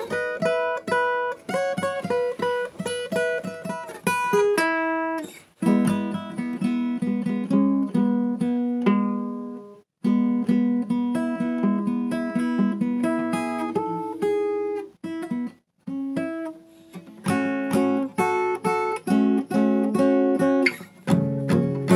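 Acoustic guitar playing an instrumental passage of single picked notes and strums, with no voice. It stops briefly three times.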